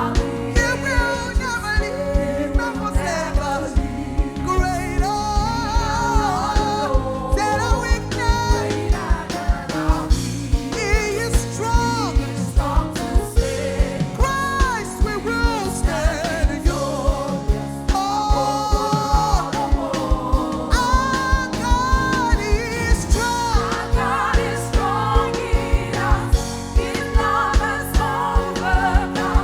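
Gospel worship music: a singer's voice over a band with a steady drum beat.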